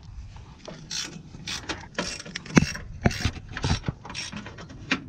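Irregular mechanical clicks and clanks of metal parts or tools being handled, the loudest about two and a half seconds in.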